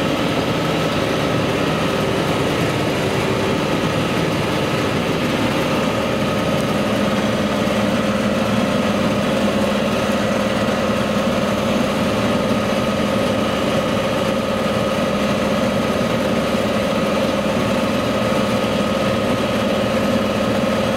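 John Deere 6430 tractor running steadily under load, heard from inside the cab while it pulls a stalk-chopping implement through corn stubble. A low hum grows stronger about six seconds in.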